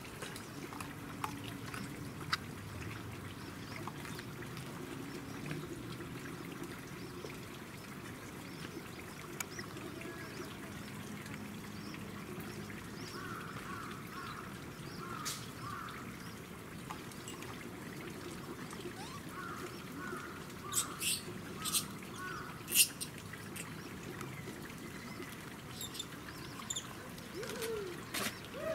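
Quiet outdoor background with scattered short chirping calls, a few sharp clicks about three-quarters of the way in, and a short rising-and-falling call near the end.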